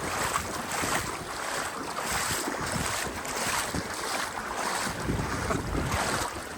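Floodwater rushing and splashing, with wind buffeting the microphone in uneven gusts.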